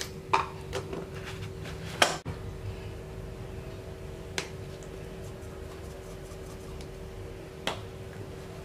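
A few short clicks and knocks of small seasoning jars and plastic containers being handled and set down on a tiled counter, the sharpest about two seconds in, over a steady low hum.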